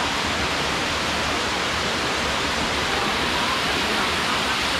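Waterfall cascading down tiers of rock ledges: a steady, even rush of falling water.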